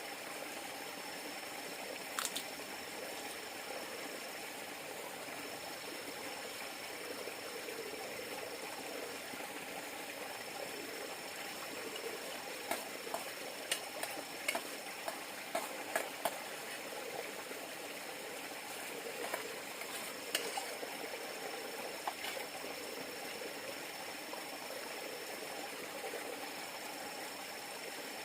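River water flowing steadily, with a thin steady high-pitched tone above it and a scattered cluster of sharp clicks and taps about halfway through.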